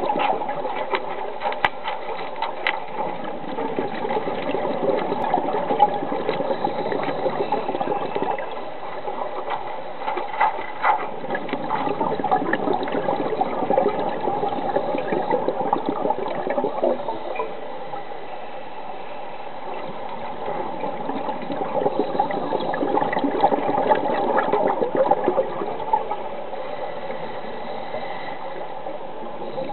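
Underwater noise recorded on a dive: a steady rushing, bubbling water sound with scattered clicks and crackles, and a faint steady hum under it.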